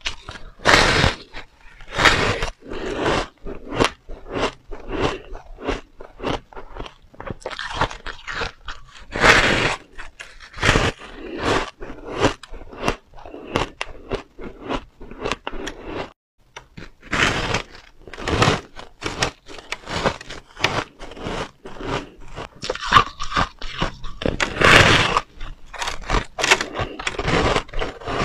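Close-miked crunching as a person bites and chews blocks of soft, powdery shaved ice: a dense run of irregular crisp crunches, with a short pause about halfway.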